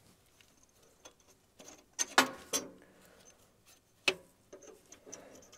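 A few sharp clicks and light ticks of small metal hardware being handled: the clutch linkage's pin and cotter pin, pulled loose and fitted back together. There are about four distinct clicks, with faint ticking between them.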